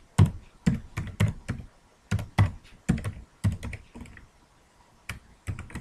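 Computer keyboard being typed on: a quick, uneven string of key clicks, several a second, easing off briefly about four seconds in.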